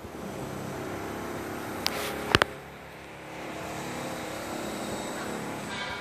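Steady hum of motor vehicles or engines, with three sharp knocks from the phone being handled about two seconds in.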